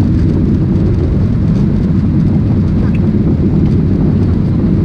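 Jet airliner cabin noise over the wing: a steady low rush of engines and airflow.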